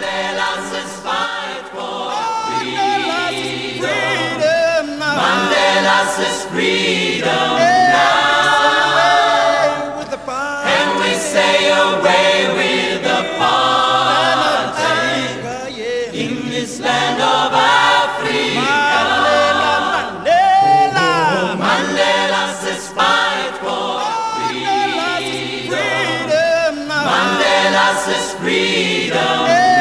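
A choir singing without instruments, in phrases with short breaks between them.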